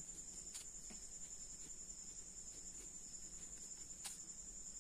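Crickets trilling steadily at a high pitch, faint in the background, with two faint clicks, about half a second in and near the end.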